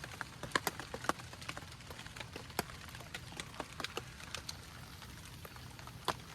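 Raindrops tapping irregularly on a surface, single sharp drips at uneven intervals, a few louder than the rest.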